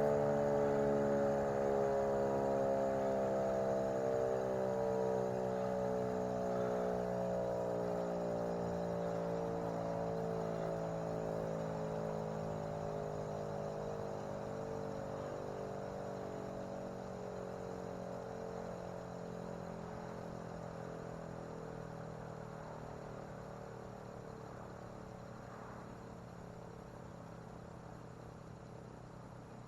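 Federal Model 5 mechanical fire siren winding down after being switched off, its rotor coasting toward a stop. The tone slides slowly and steadily lower in pitch and fades gradually.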